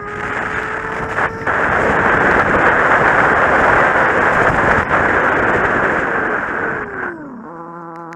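Kawasaki Z750 inline-four motorcycle under way, its engine mostly buried under loud wind noise on the microphone. About seven seconds in the wind noise drops away as the bike slows, the engine pitch falls, and a steady engine note is left near the end.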